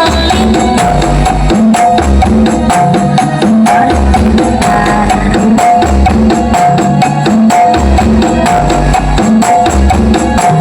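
Loud dance music blasting from a giant 'sound horeg' mobile sound system, with heavy bass pulsing in a repeating pattern under steady percussion and a recurring high synth note.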